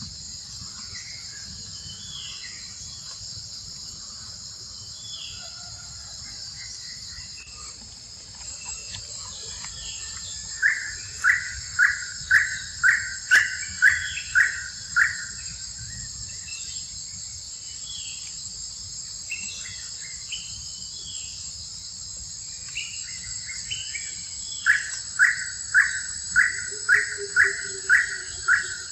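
Steady high buzzing of insects, with a bird calling loudly twice in runs of about ten short, evenly spaced notes, about two a second: once about ten seconds in and again near the end.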